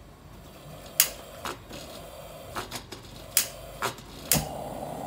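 Coleman Northstar propane lantern being lit: its igniter clicks about seven times over a faint hiss of gas, and on the last click the mantle catches and the lantern runs with a steady hiss.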